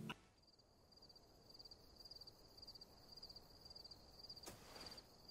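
Faint crickets chirping in a steady, high, pulsing trill: night-time ambience for an animated night scene. A brief soft rustle comes about four and a half seconds in.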